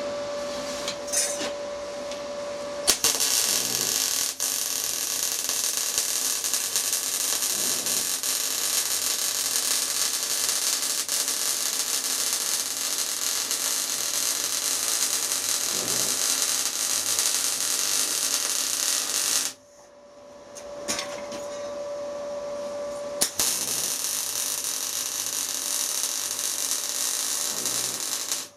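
Electric arc welding on sheet steel: the steady crackling hiss of the arc in two runs. The first run goes from about three seconds in to about two-thirds of the way through, and the second follows a short pause and goes on to the end. A steady hum is heard in the gaps between runs.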